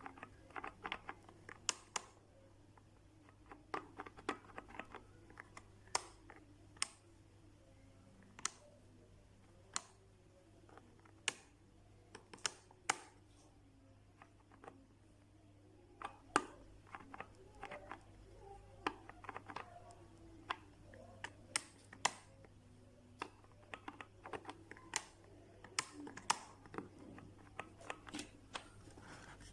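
Irregular sharp clicks and light knocks of small parts and tools being handled while taking apart an electric blender, over a steady low hum.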